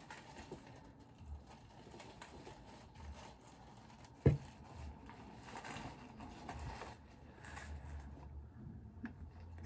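Faint rustling and small taps as a long black wig is handled and packed away, with one sharp knock about four seconds in, the loudest sound.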